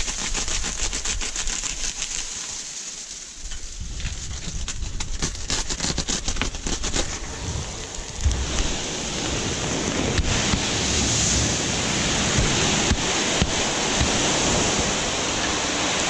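Granular fertilizer pouring from a big bag into a spreader hopper. A crackling trickle of granules comes first, then a steady hiss of full flow sets in suddenly about eight seconds in.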